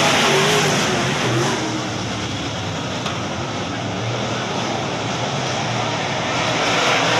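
A field of UMP dirt modified race cars running at speed on a dirt oval, engines loud and blended together. The noise drops off about a second and a half in and swells again near the end as the pack comes around.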